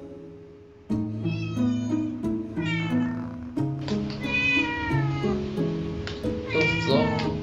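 House cats meowing about four times, drawn-out meows that bend up and down in pitch, as they beg for a treat. Light background music with held notes plays under them.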